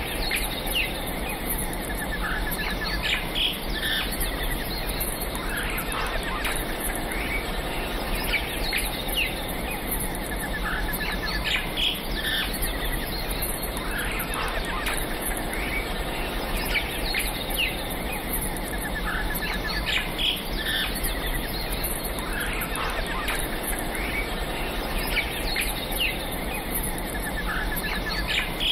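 Birds chirping and calling, short chirps and occasional quick trills repeating throughout, over a steady background noise.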